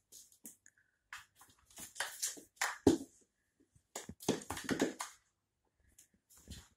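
A cat's paws and claws scrabbling and thumping on a laminate floor as it pounces on and bats at its prey, in two quick flurries about a second in and about four seconds in, with one sharper thump near the middle.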